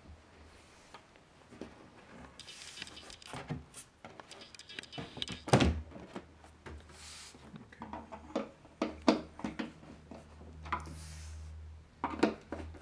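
Handling noises as a trim strip is fitted to a wooden bed frame: short scrapes, scattered knocks, and one sharp knock about five and a half seconds in. Near the end come quick clicks from a hand screwdriver driving screws into the trim.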